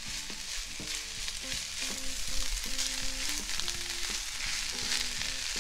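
Fresh spinach with chopped red onion and garlic sizzling in a hot frying pan as it wilts, stirred with a spatula.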